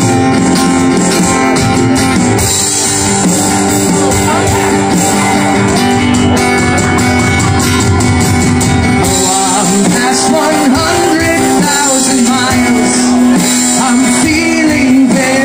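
Live acoustic guitar strummed over an electronic drum kit in a small rock-style duo. A man's singing voice comes in about ten seconds in.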